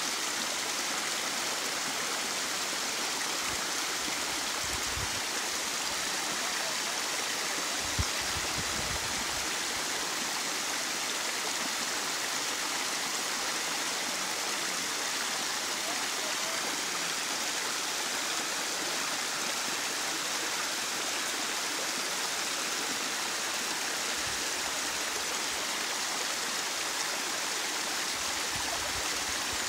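Narrow waterfall running steadily, a constant rush of falling water, with a brief low thump about eight seconds in.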